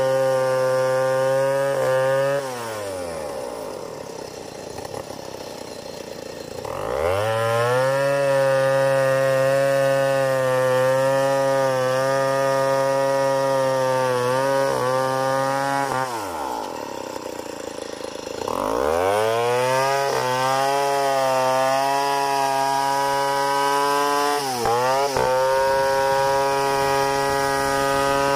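Stihl 070 chainsaw, a big single-cylinder two-stroke, ripping a log lengthwise at full throttle. About two seconds in, it drops to idle for several seconds, then revs back up into the cut. It does the same again around the middle, and the revs dip briefly near the end.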